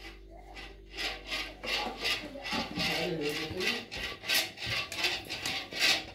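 A metal ladle stirring and scraping cooked rice in a metal pot, in quick rough strokes about three a second that begin about a second in.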